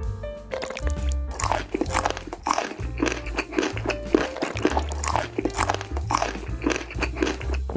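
Crunchy biting and chewing eating sounds, about two crunches a second, over background music with a steady bass line.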